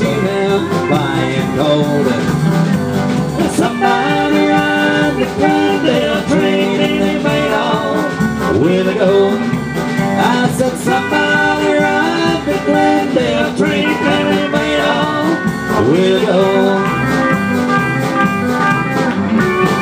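A live country band playing: electric guitars over an electric bass line.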